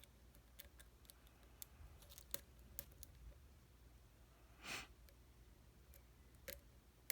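Faint, scattered small clicks of a hook pick and tension wrench working the pins of a pin-tumbler challenge lock. A short hiss about two-thirds of the way through.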